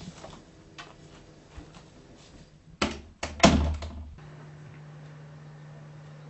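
An interior door being opened and shut: a latch click, then a few sharp knocks and a thud of the door closing about three seconds in. After that a steady low hum.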